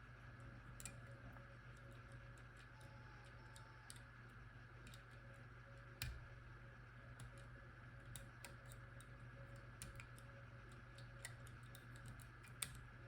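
Faint, scattered small clicks of a disc-detainer pick turning the rotating discs inside an Abloy Classic padlock, with one sharper click about six seconds in. A steady low hum runs underneath.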